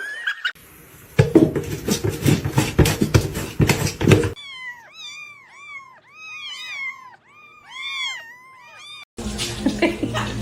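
A cat meowing again and again: short, high mews that rise and fall, about a dozen of them over five seconds. Before them comes a few seconds of loud rough noise, and more noise near the end.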